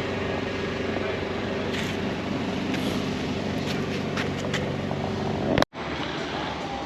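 Car engine running steadily at a constant speed in a workshop, with a few light clicks. About five and a half seconds in it cuts off abruptly and is followed by a quieter, steady workshop hum.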